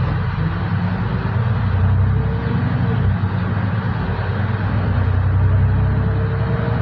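Solaris Urbino 12 IV city bus under way, heard from inside at the front: a steady low engine drone with road noise, and a faint whine that glides slowly up in pitch a few times.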